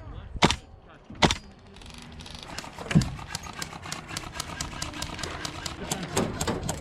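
Airsoft guns firing: two sharp single shots in the first second and a half, then a rapid rattle of shots from about two and a half seconds in.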